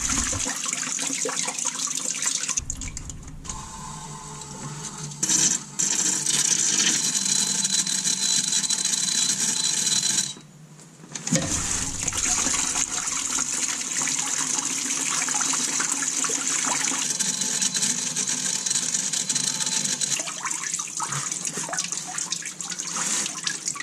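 Water from a garden hose pouring out of the drain hole of a 5.9 Magnum V8's engine block in a steady stream, as the cooling system is flushed of rust and deposits. The flow sound dips twice, the second time sharply and briefly.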